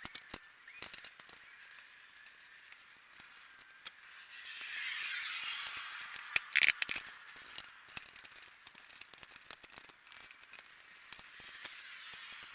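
Scattered light clicks and rattles of parts being handled and fitted into place. A soft rustling hiss comes about four and a half seconds in, followed by a sharp cluster of clicks, the loudest sound here.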